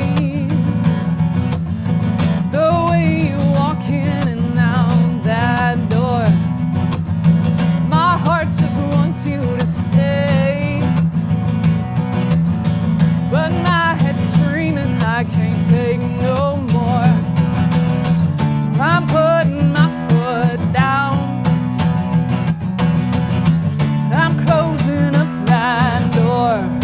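A country-style song: a woman sings with vibrato over a strummed acoustic guitar.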